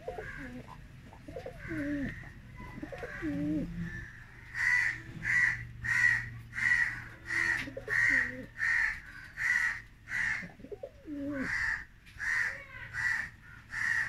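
Domestic pigeons cooing in a loft: low, gliding coos in the first few seconds and a few more later. From about four seconds in, a louder, harsh bird call repeats steadily, about three calls every two seconds.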